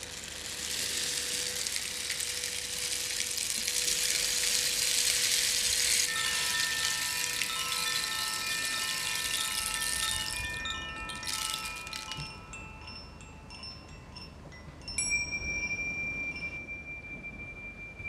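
A rainstick pours a steady rush for about the first six seconds, over the fading ring of a singing bowl. Then a small hand-held wooden chime box rings a cluster of overlapping notes for several seconds, and about fifteen seconds in, tingsha cymbals are struck together once and ring on with one high tone.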